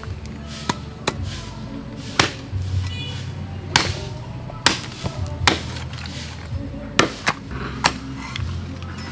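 Goat meat being chopped with a heavy blade: sharp chops at uneven spacing, about one a second, over background music.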